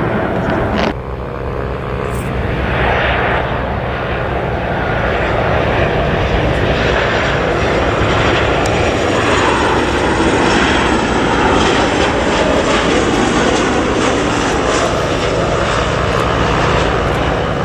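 Jet engines of a Ryanair Boeing 737 on final approach: a steady rush over a low hum, with the pitch falling slightly as it passes. The sound changes abruptly about a second in, where it cuts from the previous aircraft.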